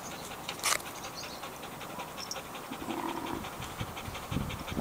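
Dog panting rapidly in a fast, even rhythm, with a brief louder breathy burst about a second in.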